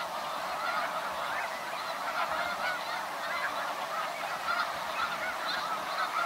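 A large flock of snow geese calling without pause: a dense chorus of many overlapping honks.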